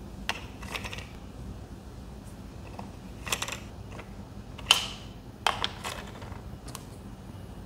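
AAA batteries being fitted into the plastic battery compartment of an automatic soap dispenser: scattered small clicks and taps, the sharpest about five seconds in.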